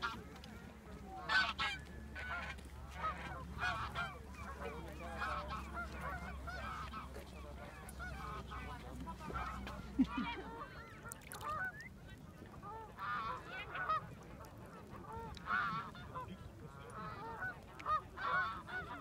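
A flock of geese honking: many short calls, one after another and overlapping. A low steady hum sits under the first half and stops about halfway.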